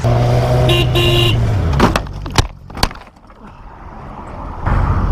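A vehicle horn blaring steadily for about two seconds, then two sharp knocks; engine and wind noise comes back near the end.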